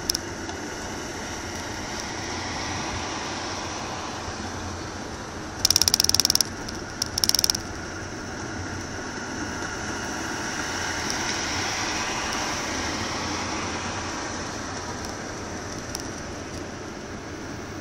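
Steady road and tyre noise of a moving car, heard from inside the cabin, swelling a little in the middle. Two brief loud bursts of rattling cut in about six and seven seconds in.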